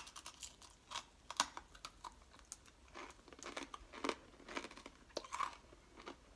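A person chewing a hard, crunchy caramel-coated snack mix of Chex cereal, popcorn and pretzels, with irregular crunches about two a second.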